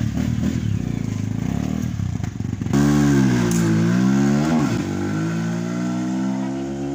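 Motorcycle engine running at idle, then revved about three seconds in, louder, its pitch dipping and climbing before it holds at a higher steady speed.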